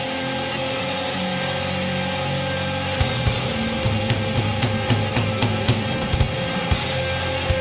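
Thrash metal band playing live: distorted guitar chords are held at first, then about three seconds in the drum kit comes in with kick drum and cymbal hits.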